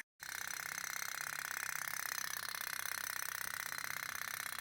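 Toy pop-pop (putt-putt) steam boat running, its little wick-heated boiler and tubes giving a fast, steady stream of pops like a tiny idling engine. The sound drops out for a moment right at the start.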